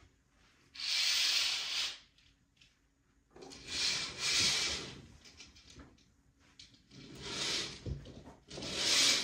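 Household handling noises: several rustling, scraping bursts of about a second each, as things are moved or slid about.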